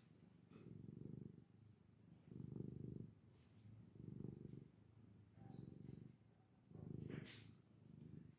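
Tabby cat purring close up, the purr swelling and fading with each breath about every one and a half seconds. A short scratchy noise near the end.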